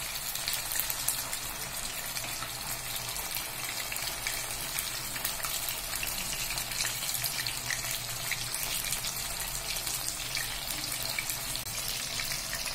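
Masala-coated pomfret slices shallow-frying in hot oil: a steady sizzle with many small crackles and pops.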